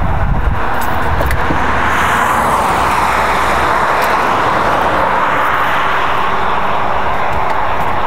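A steady, loud rushing noise with a low rumble underneath.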